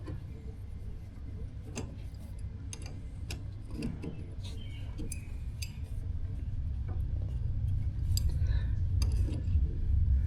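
Scattered light metallic clicks and taps of hand tools working on a garden tractor's reverse pedal, over a low rumble that grows louder in the second half.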